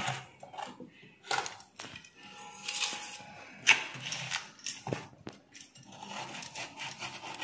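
Kitchen knife cutting peeled raw potatoes, with irregular sharp clicks and knocks about a second apart.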